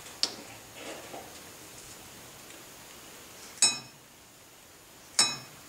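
Small metal parts clinking as a dial indicator and its stand are set against a disc brake rotor: a faint click near the start, light handling, then two sharp clinks with a brief metallic ring about a second and a half apart.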